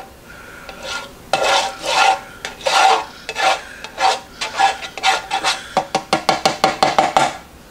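Plastic spatula scraping and rubbing across the nonstick plate of an electric griddle, spreading oil in repeated strokes that turn into quick short back-and-forth strokes over the last second and a half.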